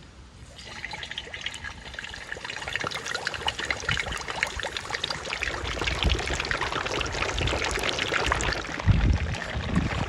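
Food sizzling in a hot pan: a dense crackle that builds up over the first few seconds and then holds steady.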